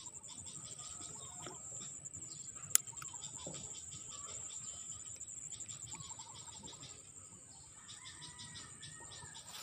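Insects buzzing and chirping steadily in a high, fast-pulsing trill, with birds calling now and then. A single sharp click about three seconds in.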